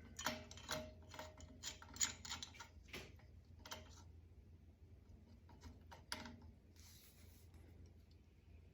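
Light clicks and ticks of metal tools and a threaded pipe fitting being turned tight on an air-compressor tank manifold, a quick run of them over the first few seconds, then only a few faint ones.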